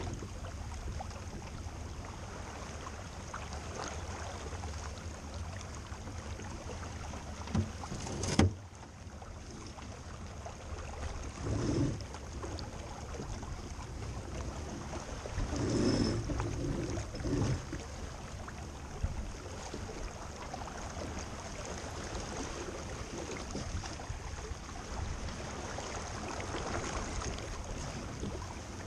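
Steady rush of wind and water, with a few short, louder knocks: two about eight seconds in, one near twelve seconds and a cluster around sixteen to seventeen seconds.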